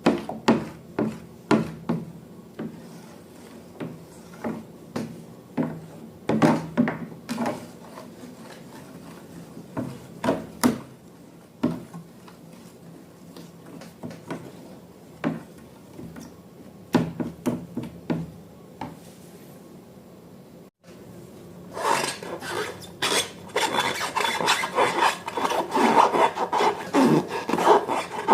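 Irregular scraping and rubbing strokes that become a dense, continuous rasping after a brief cut-out about 21 seconds in.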